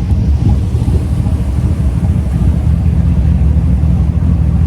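2013 Chevy Tahoe's V8 engine idling steadily with a deep, loud exhaust note.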